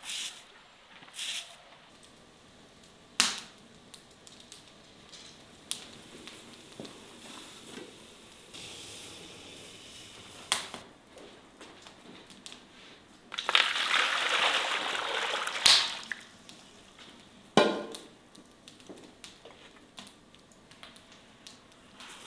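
A broom sweeping snow in a stroke or two, then scattered knocks of aluminium cookware. Water is poured from one pot into a larger pot for about two seconds, ending in a sharp clank.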